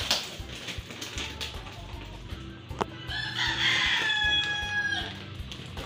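A rooster crows once, a single held call of about two seconds starting near the middle. Before it comes crinkling and rustling of the clear plastic wrap being pulled off a rolled foam mattress topper, with one sharp click.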